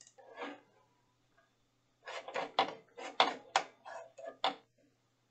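Computer keyboard and mouse clicks: about a dozen short, irregular taps over two and a half seconds, over a faint steady low hum.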